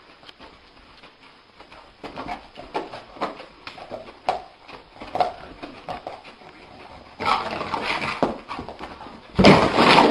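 A dreaming dog yipping and whimpering in its sleep, in short sounds about two a second. A louder stretch of noise comes about seven seconds in, and a loud burst of noise near the end.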